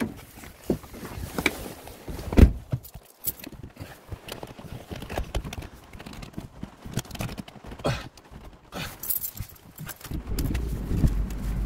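Handling noises of someone getting into a car: scattered knocks and clicks, with a loud thump about two and a half seconds in, likely the door shutting. Near the end a low, steady rumble comes in as the car's engine starts and idles.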